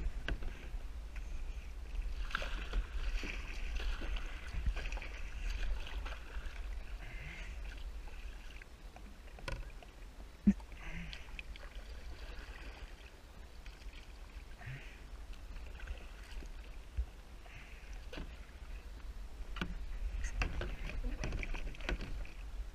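Kayak paddle strokes dipping and splashing in the water, coming in uneven bursts every second or two over a steady low rumble. A few sharp knocks stand out, the loudest about ten and a half seconds in.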